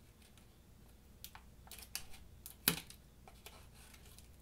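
The spring-loaded scissors of a Gerber Armbar Drive multi-tool snipping paper: a handful of light, sharp clicks, the loudest a little past halfway.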